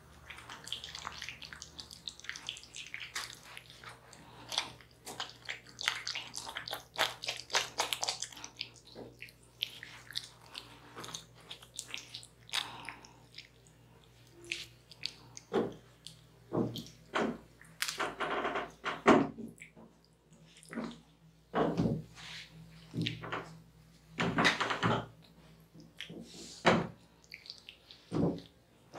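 Wet squishing and rubbing of hands massaging skin coated in a blended-fruit scrub, in short, uneven strokes.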